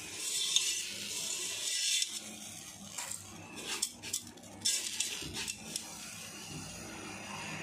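Coarse rock salt rustling and crunching as a hand spreads it over the bottom of a dry metal pressure cooker, with scattered sharper scrapes about three to five seconds in.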